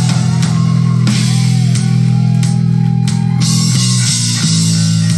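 Live heavy rock band playing: electric guitar and bass hold steady low notes over drums and cymbals.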